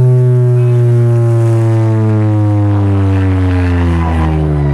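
A competition car sound system playing one loud, deep, sustained tone that slowly sinks in pitch. It is a test tone played for an RTA sound-pressure measurement.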